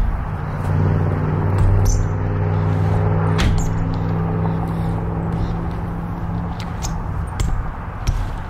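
BMX bike riding in a skatepark bowl: the tyres rolling on the ramp surface give a steady low hum, with sharp knocks and clicks from the bike, the strongest about three and a half seconds in.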